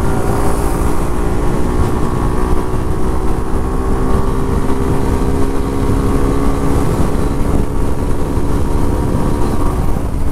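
Suzuki Gixxer 150's single-cylinder engine running at a steady cruising speed, its pitch holding level, with wind noise.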